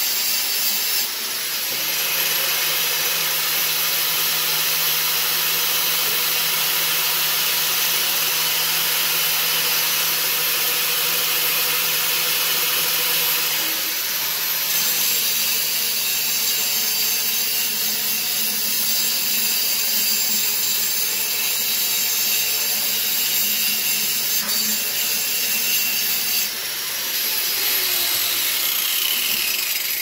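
Power grinder grinding steadily on the steel crankshaft stub of a 1976 Briggs & Stratton 5 hp flathead, taking metal off so a 3/4-inch clutch will fit. The grinding changes character about halfway through and lets up briefly near the end.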